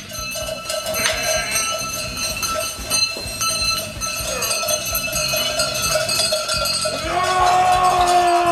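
Bells on sheep clanging and jingling as the flock moves about, with a louder wavering tone coming in about seven seconds in.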